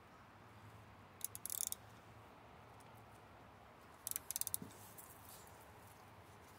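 Ratchet wrench clicking on the back-swing in two short runs of quick clicks, about a second in and again about four seconds in, while loosening the alternator bracket bolts.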